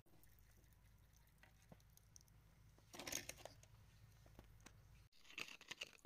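A faint low hum with a few small clicks, then a run of quick scrapes and clicks from a metal tool working wet mud off a crystal, starting about five seconds in.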